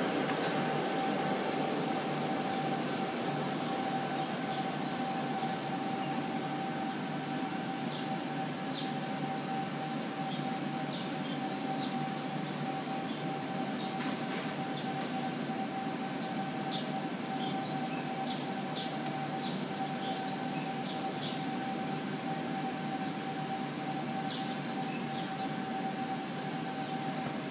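Electric air blower running steadily, a constant whine over a rushing of air, as it pumps air into a vinyl inflatable bouncy castle.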